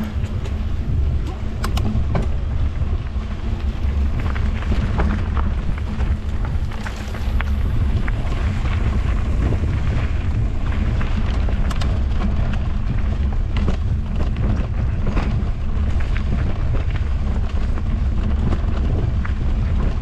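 Heavy wind buffeting on the microphone from fast movement, a steady rumble, with irregular rattles and clicks scattered through it.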